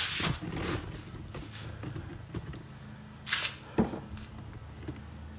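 Handling noise: short scrapes and small knocks, one near the start and one about three and a half seconds in followed by a sharp click, over a steady low hum.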